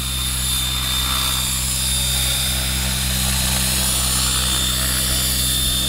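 Radio-controlled model helicopter flying low: a steady rotor and motor hum with a thin high whine held above it.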